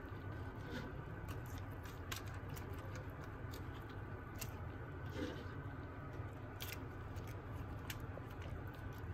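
Silicone basting brush dabbing and scraping over roasted chicken drumsticks in a foil-lined tray: a scatter of soft squelches and sharp little ticks over a steady low hum.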